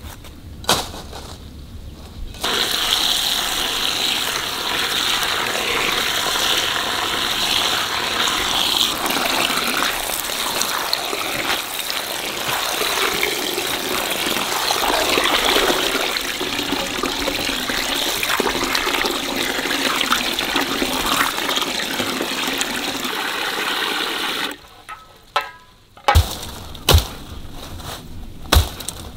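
Water from an outdoor tap running in a steady stream into a metal basin of fresh greens being washed by hand. The flow starts about two seconds in and stops a few seconds before the end, followed by a few sharp knocks.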